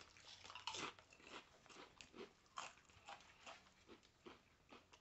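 Someone chewing crunchy chips: a faint run of short, irregular crunches.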